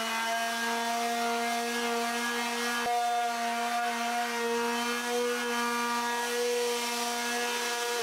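Fein MultiMaster oscillating multi-tool running steadily at a reduced speed setting (about 2 or 3) with a 4.5-inch perforated sanding pad, sanding a flat wooden board: an even buzzing hum over the hiss of abrasive on wood. There is one sharp tick about three seconds in.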